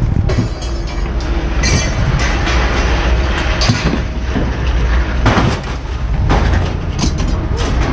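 Scrap metal clanking and banging as pieces are handled and dropped during unloading, several separate hits over a steady low rumble.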